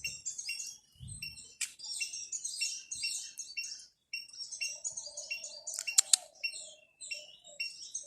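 Small birds chirping and chattering, with one short chirp repeated steadily about twice a second. A couple of sharp clicks stand out about six seconds in.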